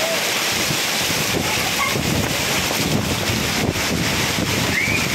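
Hailstorm: hail and rain falling hard and steadily on a concrete terrace and plant pots, a dense unbroken hiss, with wind gusting over the microphone.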